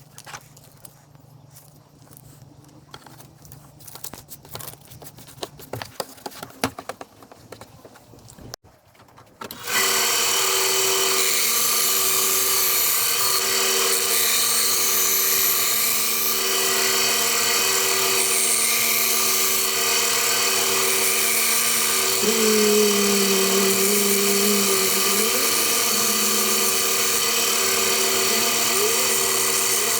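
Light clicks and knocks of handling, then about ten seconds in a small power tool starts and runs steadily at high speed, its pitch wavering briefly under load later on.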